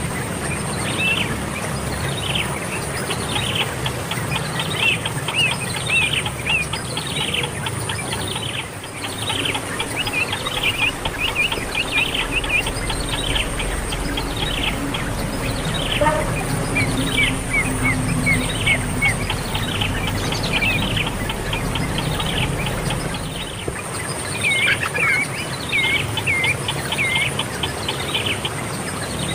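A small bird calling over and over in short, quick, falling chirps, a few a second, in runs with brief gaps; near the end the notes turn into shorter hooked chirps. A steady high-pitched buzz runs behind them.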